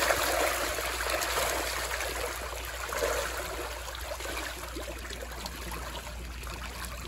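Water splashing and churning as a swarm of catfish thrashes at the surface to feed on food scraps. It is loudest at first and eases to a steadier wash.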